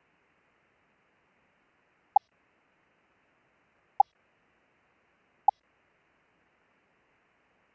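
Three single Morse code dits: short beeps of a CW audio tone at one steady pitch, spaced about a second and a half to two seconds apart, over faint hiss.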